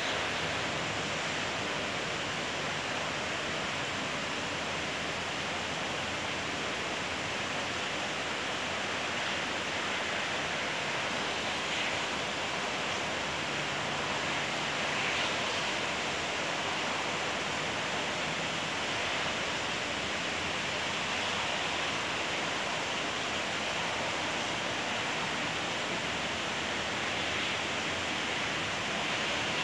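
Steady rain falling, an even hiss that swells slightly now and then.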